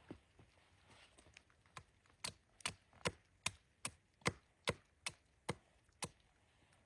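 A quick run of about ten sharp knocking strikes, a little over two a second. They start about two seconds in after a few fainter knocks and stop about six seconds in.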